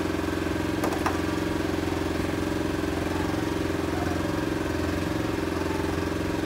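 Small boat's outboard motor running steadily, with two short clicks about a second in.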